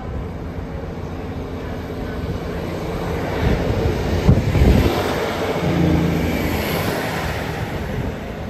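A train moving past on the line: a low rumble with a steady drone that swells to its loudest about halfway through, then eases off.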